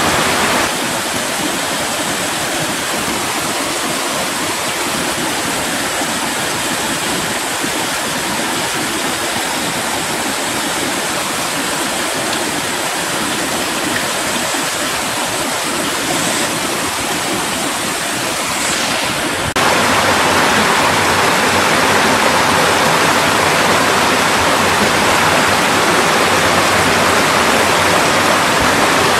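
Mountain valley stream rushing over rocks, a steady water sound. About twenty seconds in it changes abruptly to a louder, fuller rush.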